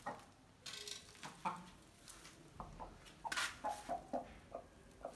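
A hen giving a series of short, soft clucks while rustling the straw as she steps into a nest basin and settles onto a clutch of eggs. There are a few brief straw rustles in the first half and a run of quick low clucks in the second half.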